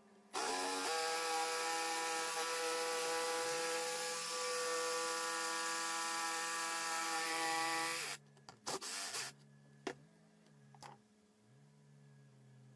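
Makita cordless jigsaw spinning up and cutting across a thin board at a steady speed for about eight seconds, then stopping. A brief burst and a couple of sharp clicks follow.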